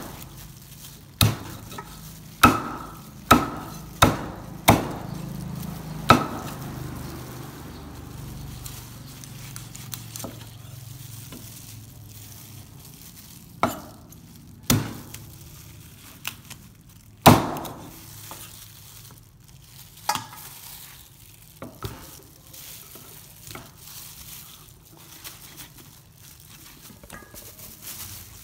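Cleaver chopping a cooked chicken into pieces on a thick round wooden chopping block: sharp, irregular whacks, a quick run of five in the first five seconds, then spaced out and lighter, with quieter cutting and handling between.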